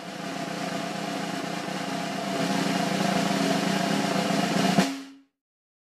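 A snare drum roll over a held low chord, swelling about halfway through. It ends on a single hit near five seconds in and then cuts off to silence.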